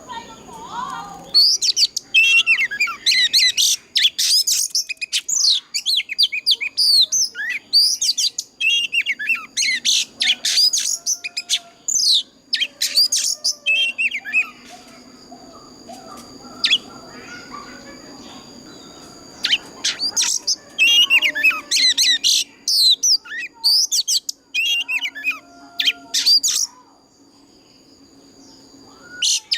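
Oriental magpie-robin singing: rapid, varied phrases of sweeping whistles and chirps in two long bouts, with a pause of several seconds between them and another near the end.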